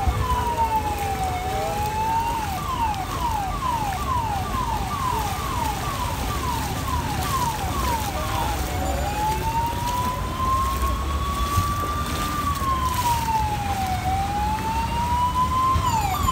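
Electronic emergency-vehicle siren, alternating between a slow rising-and-falling wail and a rapid yelp of about three falling sweeps a second: wail at first, yelp from about two seconds in until about eight, wail again, and the yelp returning near the end.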